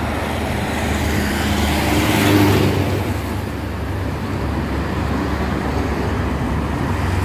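Road traffic on a busy highway: steady engine and tyre noise, with a vehicle passing close and loudest about two seconds in.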